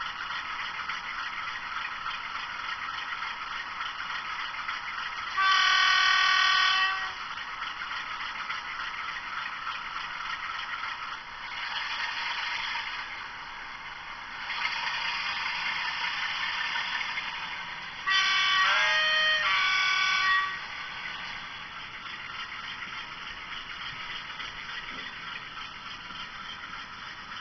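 Sound-fitted model Class 47 diesel locomotive, played through its own speaker: steady engine sound with a single horn blast about five seconds in. The engine sound swells twice as it powers up, then a longer two-tone horn sounds about eighteen seconds in as the train starts to depart.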